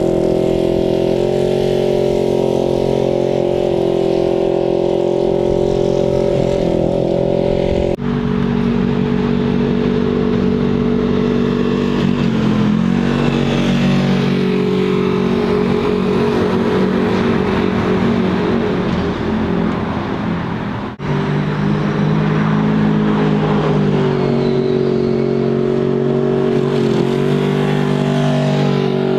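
Polaris RZR twin-cylinder engine running through an MBRP 304 stainless steel replacement muffler, holding a mostly steady pitch with a few brief changes in engine speed. The sound cuts abruptly to a new take twice, about eight seconds in and again about twenty-one seconds in.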